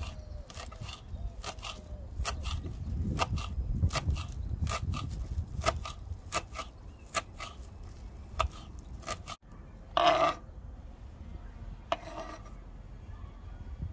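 Chef's knife chopping fresh chives on a wooden cutting board: a run of quick, irregular taps of the blade against the wood, about two or three a second. After about nine seconds the tapping stops and two short, louder scrapes follow, about two seconds apart.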